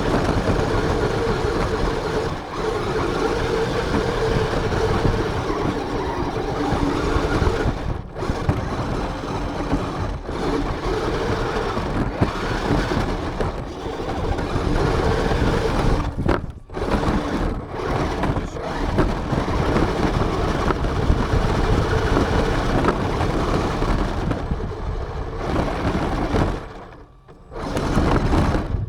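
Onboard sound of an RC car driving: motor and drivetrain running under load with a steady hum, mixed with rough rumbling noise from the wheels on the ground. It cuts out briefly a few times and drops away for about a second near the end, when the car lets off or stops.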